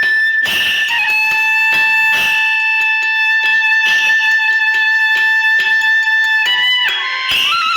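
Background music: long held melodic notes over a steady beat, the lead sliding to a new note near the end.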